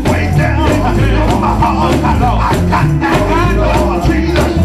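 Gospel praise music: voices singing over a steady deep bass line and rhythmic percussion.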